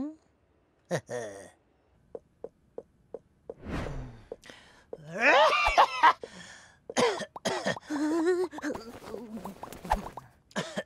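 Cartoon characters' wordless vocal sounds: grunts and wavering, warbling exclamations, loudest a few seconds past the middle. Early on there is a row of light footstep ticks, then a whoosh.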